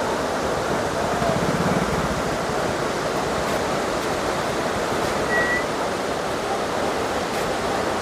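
Steady rushing of a tall waterfall dropping from a high cliff: an even wash of falling water.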